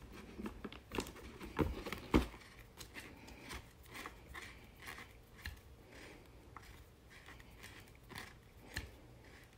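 Pressure washer extension wand and gun fittings being handled and joined by hand: scattered light clicks and knocks of the parts, the sharpest about two seconds in, with faint rustling between.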